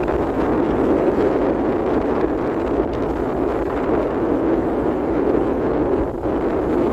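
Steady rushing noise of a boat under way, with wind buffeting the microphone; it dips briefly about six seconds in.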